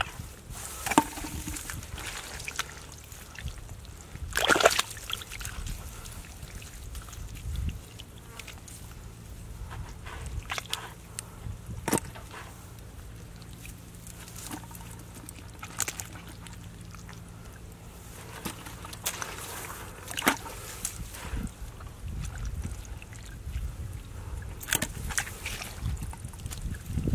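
Hands sloshing and squelching through shallow muddy water and wet grass, groping in the mud for catfish, with sharp splashes every few seconds.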